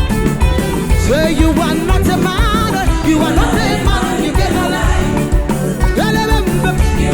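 Gospel band music with a steady bass beat, and a wavering sung melody line coming in about a second in.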